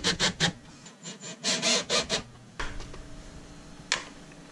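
Cordless drill working screws at a metal wall-mount plate: a run of short rough grinding, rasping sounds. After about two and a half seconds it gives way to quieter handling noise, with a single sharp click near the end.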